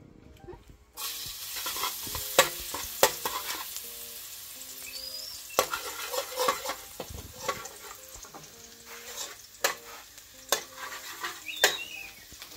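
Chopped garlic frying in a steel wok, a steady sizzle that starts about a second in, with a metal spatula scraping and clacking against the wok as it is stirred.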